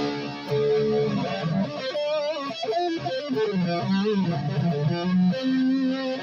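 Electric guitar, a B.C. Rich Mockingbird reshaped into an Explorer body, played through an amp: single-note lead lines with string bends and vibrato, with a held note about a second in and another near the end.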